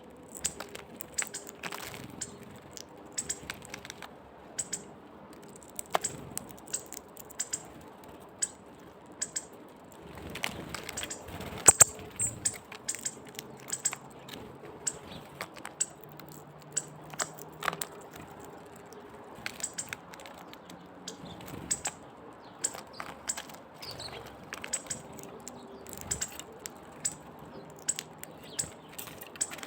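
Small birds making a scatter of sharp high ticks and clicks, irregular and at times several a second, with a louder crack about twelve seconds in.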